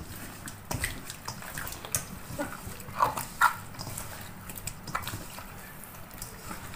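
Wet squelching of catfish pieces being rubbed and turned by hand in a stainless steel bowl with their seasoning paste, with irregular clicks as the fish knocks against the metal.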